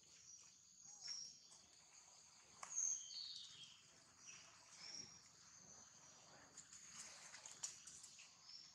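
Faint outdoor insect chorus, a steady high-pitched drone, with a few short high chirping calls, the loudest about three seconds in, falling in pitch.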